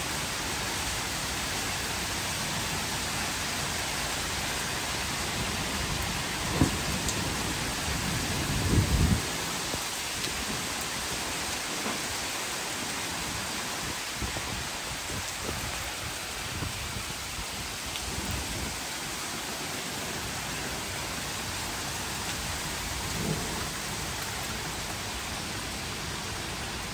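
Heavy rain pouring steadily. A few brief low thumps stand out, the loudest about nine seconds in.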